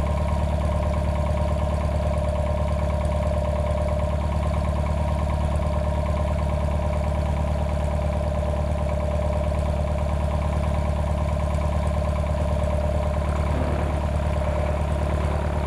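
The four-cylinder Continental O-200 engine and propeller of a 1972 Cessna 150L running steadily at low power while taxiing, an even drone with no change in pitch.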